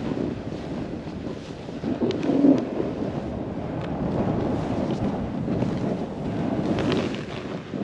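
Wind rushing over an action camera's microphone while a snowboard slides through deep powder, with a louder swell about two seconds in.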